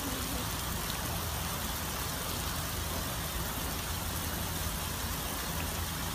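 Steady low machine hum under a constant hiss like running water, with no distinct splashes or knocks.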